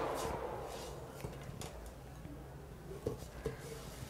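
Soft scrapes and a few light taps of a silicone spatula scooping garlic fried rice from a nonstick pan into a glass serving bowl. A steady background hiss fades out in the first second.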